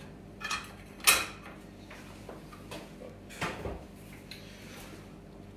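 A few short knocks and clatters of tartlet molds being handled as baked pastry shells are turned out onto a wire cooling rack, the loudest about a second in and another about three and a half seconds in.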